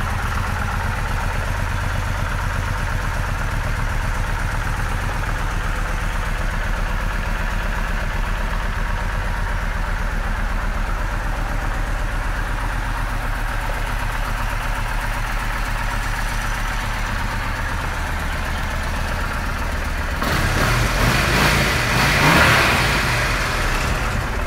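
A 2007 Kawasaki Vulcan 1600 Nomad's V-twin engine idling steadily. About 20 seconds in it is revved up, louder for a few seconds.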